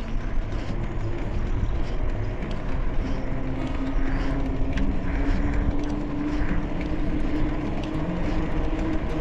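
Wind rushing over the microphone and tyre noise from a bicycle riding along a paved road. A steady low hum joins about three seconds in and rises slightly in pitch.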